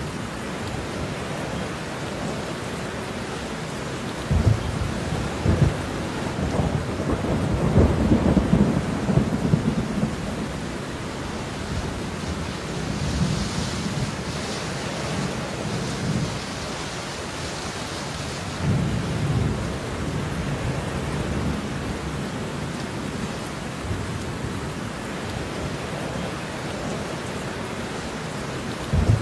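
Steady rain with rolling thunder. A long rumble builds and fades about four to ten seconds in, and shorter rumbles come later.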